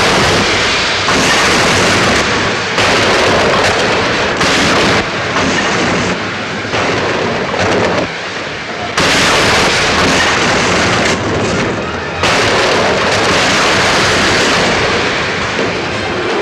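A film's crash sound effects: a chaotic clatter and smash of tin cans and store goods tumbling and scattering. It comes in loud stretches that cut in and stop abruptly several times.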